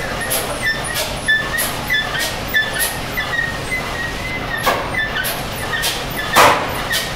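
Large vintage stationary diesel engine running slowly, with a regular knock about twice a second. One beat about six and a half seconds in is louder than the rest.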